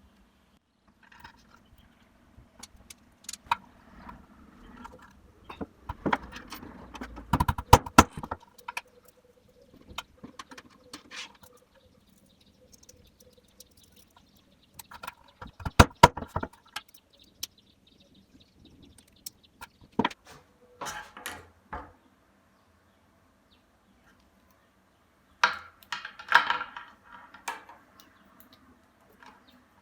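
Small metal snap fastener parts being handled and pressed onto leather, with short clusters of sharp metallic knocks, the loudest about a quarter and about halfway through, more near the end.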